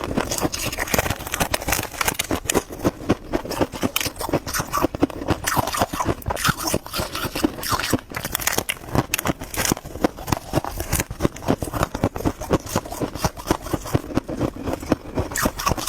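Freezer frost crunching, a dense, unbroken run of crisp crunches and crackles several times a second.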